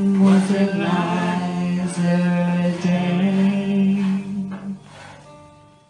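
A woman's and a man's voices holding the long final sung note of the song over acoustic guitar, dying away about five seconds in.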